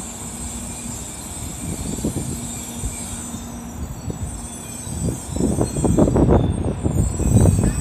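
N700 Series Shinkansen train pulling in and stopping. A steady high squeal fades out about three to four seconds in as the train comes to rest, followed by louder, uneven low rumbling in the last few seconds.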